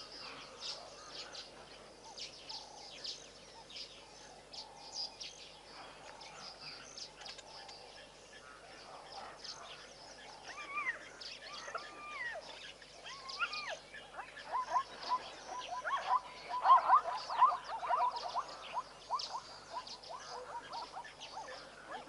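Wild animal calls: short high bird chirps throughout. From about halfway come rising and falling calls, then a fast run of repeated notes, loudest about three-quarters of the way through.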